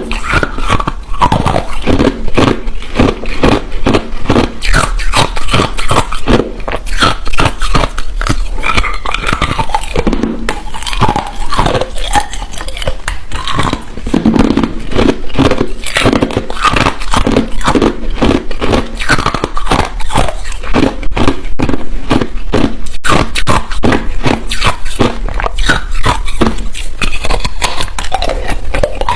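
A person biting and chewing hard ice: loud, continuous crunching made of many quick cracks, one after another, without pause.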